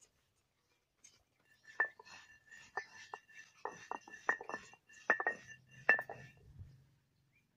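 Light, ringing clinks of small hard objects, about a dozen in an irregular run that starts nearly two seconds in. Each one rings on at the same high pitch.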